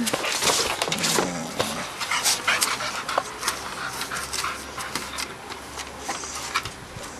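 Dog panting in quick noisy breaths, with scattered sharp clicks and scuffs as the dogs move about.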